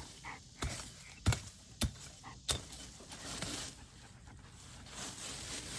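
A garden tool chopping into weeds and soil: a run of sharp strikes about two-thirds of a second apart, stopping about two and a half seconds in, followed by softer rustling.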